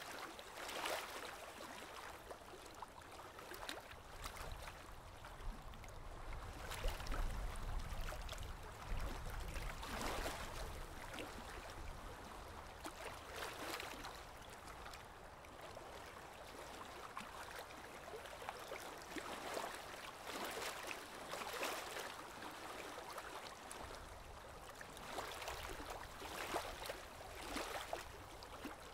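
Aquarium water trickling and gurgling, with many small irregular splashes and plops at the surface.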